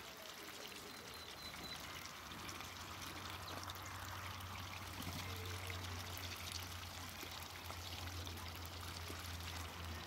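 Muscovy ducks dabbling and drinking in shallow muddy water: a continuous patter of small splashes and water noises, with a low steady hum underneath.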